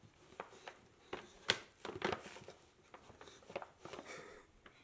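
Light rustling and scattered soft knocks from a dog nosing and pawing at a gift box, with a sharper knock about one and a half seconds in.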